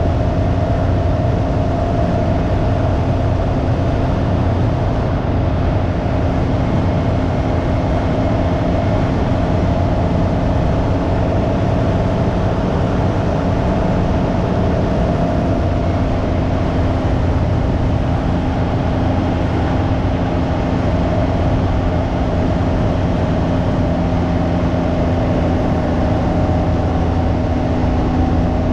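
Can-Am Ryker 900's three-cylinder engine running at a steady cruise, its pitch nearly constant, under a heavy rumble of wind on the microphone.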